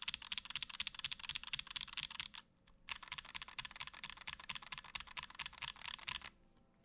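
Typing on a mechanical keyboard, a top-mount Merisi Works Dodici with vintage Cherry MX Black linear switches on an aluminium plate and GMK keycaps: quick, steady keystrokes with a short pause about two and a half seconds in, stopping about half a second before the end.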